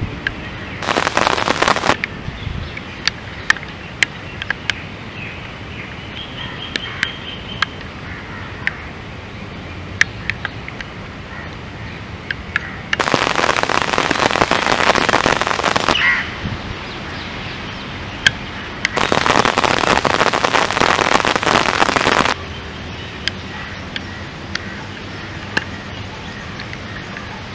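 Rain falling, a steady hiss with many sharp ticks of single drops. Three times it turns into a much louder, denser downpour hiss for one to three seconds, which starts and stops abruptly.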